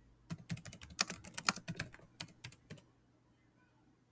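Computer keyboard typing: a quick run of key clicks that stops about three seconds in.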